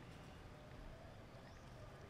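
Near silence: faint outdoor background noise with a few very faint short calls.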